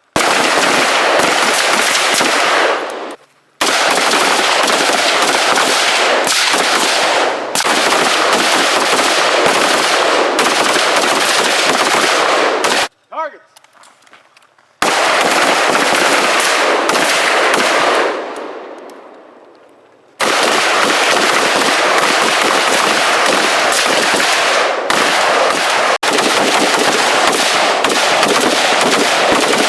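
Rapid, dense gunfire from several shooters at a firing range, with the shots running together into long stretches. It breaks off a few times, dying away or stopping suddenly, then starts again.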